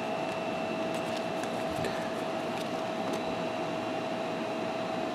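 Steady machine hum with a constant whine running through it, under a few faint clicks of glossy trading cards being handled.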